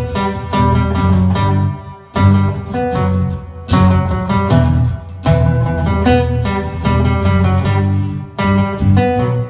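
Acoustic guitar strumming chords in a steady rhythm, with a brief lull about two seconds in.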